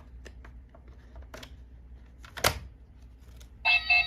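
Small plastic clicks and rattles from handling a Kamen Rider Gotchard transformation belt toy and its cards, with one sharper click about two and a half seconds in. Near the end the belt sounds loud electronic beeping tones.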